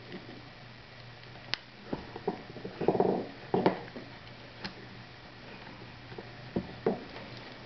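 Small irregular clicks, taps and scrapes of fingers working tiny clips into the plastic-and-metal head of an electric shaver, with a louder scraping rustle about three seconds in.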